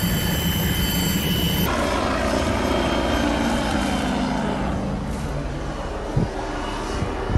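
Helicopter noise: first the steady drone of the rotor and engine heard from inside the cabin, then, after an abrupt change about a second and a half in, a helicopter flying overhead heard from a boat's deck, the sound slowly falling in pitch. Two short knocks come near the end.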